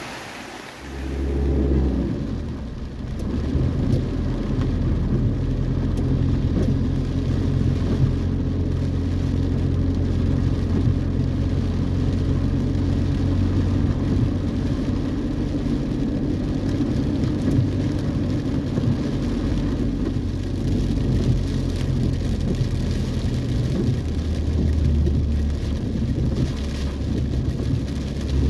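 Heavy rain falling under a steady low drone, like an engine running.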